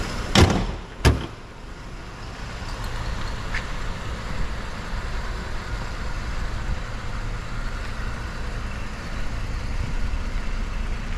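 Hood of a 2011 Mercedes-Benz E300 shut with two thumps within the first second or so, while the car's 3.0-litre gasoline V6 idles steadily.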